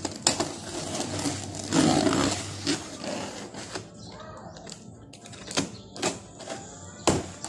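Utility knife cutting packing tape on a cardboard box: scraping and slicing with irregular sharp clicks and knocks against the cardboard, a longer rasping cut about two seconds in, and a loud sharp knock near the end.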